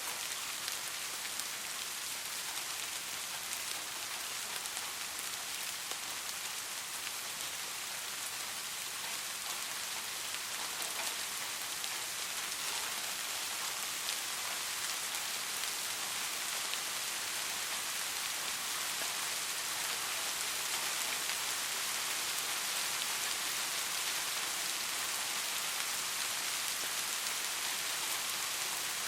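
Soft, steady rainfall: a dense, even hiss of many small drops, with no thunder.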